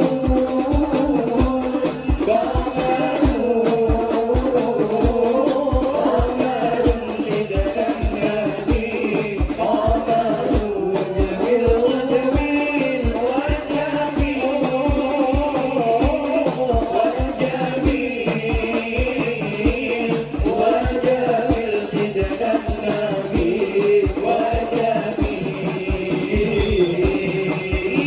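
Several young men singing an Islamic devotional song (sholawat) together into microphones, over hadrah frame drums (rebana) keeping a quick, steady beat of about three strokes a second, with a jingling rattle on top.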